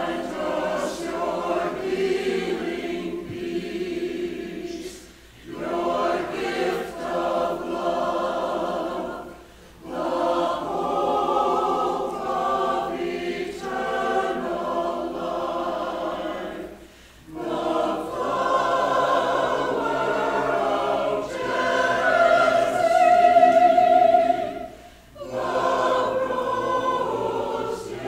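Choir singing a cappella, with no instruments. Long sustained phrases are separated by brief pauses for breath, four times.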